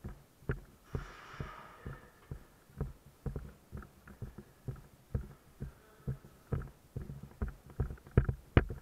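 Footsteps on a concrete floor, heard as a steady run of low thuds about two to three a second, as a player moves briskly through the course.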